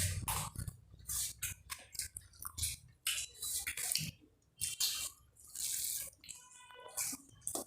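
Irregular wet splashing and squelching, as of water and food being handled by hand, with a brief high-pitched squeak near the end.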